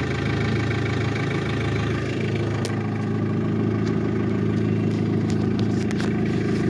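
An engine idling steadily, with a few faint clicks.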